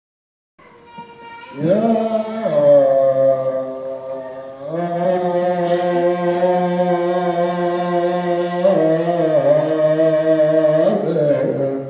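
Ethiopian Orthodox church chant sung by men: long held notes with slow slides between them, in phrases. It starts about half a second in.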